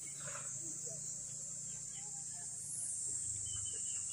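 Steady high-pitched insect drone from the surrounding vegetation, with scattered short, faint bird chirps over it.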